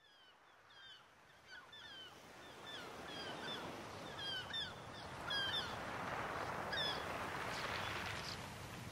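Many short, repeated bird calls, each a quick bending chirp, over a hiss of noise that grows steadily louder, all fading in from silence.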